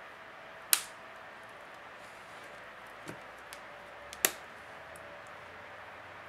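Two sharp clicks, one under a second in and a louder-peaked one about four seconds in, with a few lighter ticks between, as a small tool pries at the plastic frame and parts of a disassembled Samsung Galaxy Tab 3 tablet.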